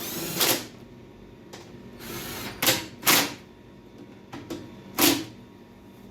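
Power driver giving short bursts to snug bolts into a snowblower's plastic belt cover, about five brief zips, the first with a rising whine. Only a couple of quick tacks on each bolt, so as not to strip the plastic.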